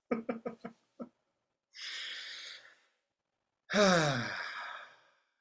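A man laughs in a few quick chuckles, breathes out audibly, then lets out a long sigh that falls in pitch.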